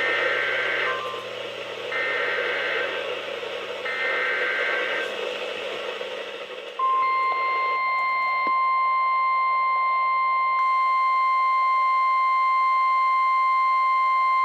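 NOAA Weather Radio Emergency Alert System activation: three short bursts of SAME digital header data, each about a second long and a second apart, over radio hiss. About 7 s in, the steady 1050 Hz warning alert tone starts and holds. This header and tone open a new Severe Thunderstorm Warning.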